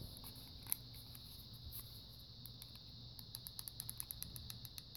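Faint clicks and taps of a small plastic handheld weather radio being turned over and fingered in the hand: one sharp click about a second in, then a quick run of small clicks near the end, over a steady faint high hiss.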